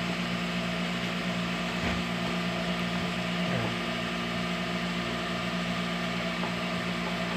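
A steady machine hum with a regular low pulsing.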